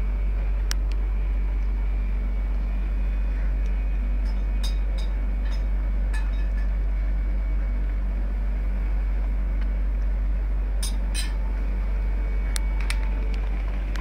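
A steady, loud low hum, with scattered faint small clicks and clinks on top of it.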